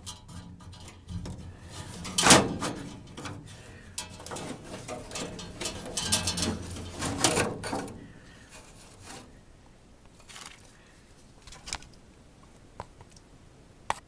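Washable plastic furnace filter scraping and bumping against the sheet-metal furnace cabinet as it is bent and worked loose from the slot where it sticks. A series of rustles and knocks fills the first half, the loudest a little over two seconds in. After that only a few faint clicks are heard.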